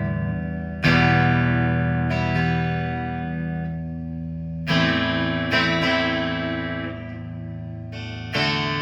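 G&L Legacy Tribute electric guitar on its neck single-coil pickup, played clean through a Line 6 amp with the bass tone knob turned fully up, giving a strong bass. Three chords are strummed and left to ring out, about one every four seconds.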